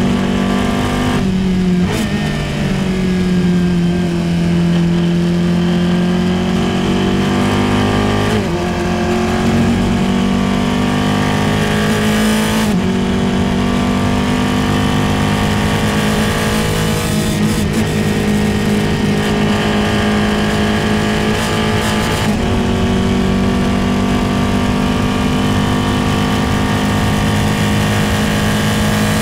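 Formula 4 single-seater's engine under full throttle, heard from the car's onboard camera, with wind noise over it. The revs climb steadily and drop sharply at two upshifts, into fifth and then into sixth.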